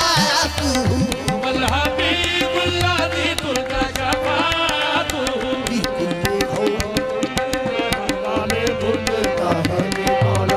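Qawwali music: tabla and hand-clapping keep up a dense rhythm under a steady held harmonium note, with a voice singing in phrases over it.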